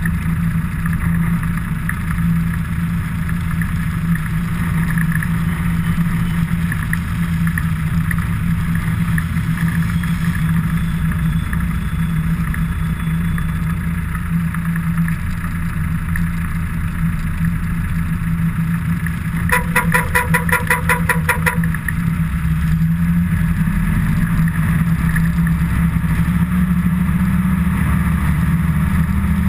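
Engine of a following vehicle running steadily with a low hum, its note shifting and then rising a little in the last few seconds. About two-thirds of the way through, a rapid pulsing tone sounds for about two seconds.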